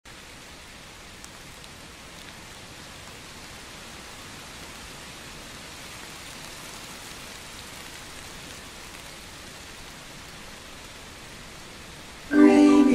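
Steady rain falling, an even hiss without distinct drops. Near the end, music starts suddenly and much louder over it.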